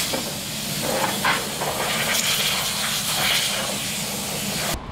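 Compressed-air blow gun hissing in uneven bursts as dust and debris are blown off a piece of fiberglass; the hiss cuts off abruptly just before the end.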